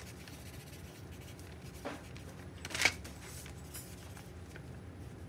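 Pen writing on paper: faint scratching, with two short rustles about two and three seconds in, the second the louder, over a low steady hum.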